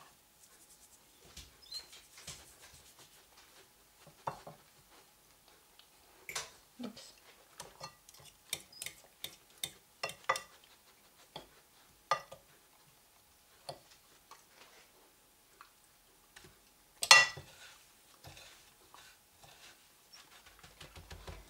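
Scattered light clicks and taps of a fork and food against porcelain plates while zucchini slices are coated in egg and breadcrumbs. One louder clink with a short ring comes about 17 seconds in.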